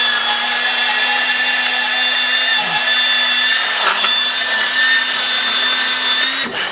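Hand-held power tool running steadily at one speed with a high whine, then shutting off near the end.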